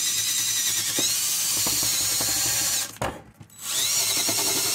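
DeWalt cordless drill spinning a wire wheel brush against rusty steel studs on a PTO plate, scrubbing off rust and grime with a steady whine and rasp. It stops briefly about three seconds in, then spins up again.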